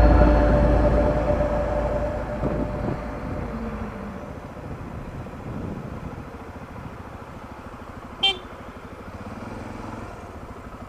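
Motorcycle running at low speed in city traffic. A vehicle horn sounds at the start and fades over the first two seconds, and a short sharp chirp comes about eight seconds in.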